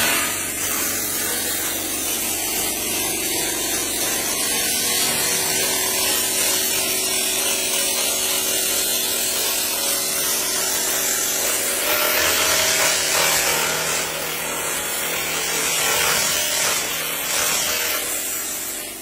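Handheld laser head stripping rust from a steel channel: a steady, harsh hiss with a low hum underneath, starting abruptly and tailing off just before the end.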